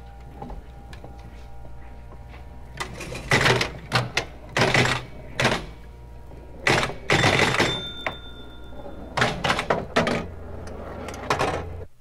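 Electromechanical pinball machine in play: clusters of loud mechanical clattering and clicking over a steady low hum, with a brief high bell tone about eight seconds in. The sound cuts off abruptly just before the end.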